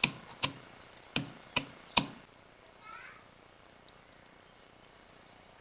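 Five sharp knocks in the first two seconds, then a faint short chirp about three seconds in.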